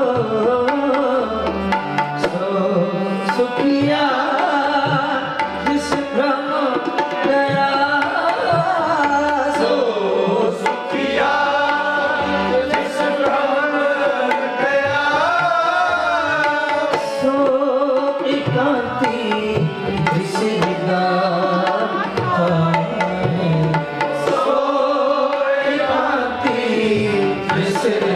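Sikh kirtan: a Gurbani hymn sung to harmonium, with tabla keeping a steady rhythm of strokes under the voice.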